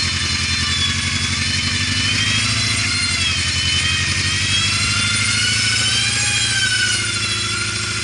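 Off-road 4x4's engine running steadily, with a high whine that slowly rises and falls in pitch.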